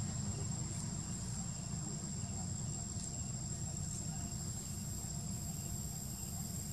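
Steady high-pitched drone of insects in the trees, held on one thin tone with a few faint ticks, over a low steady rumble.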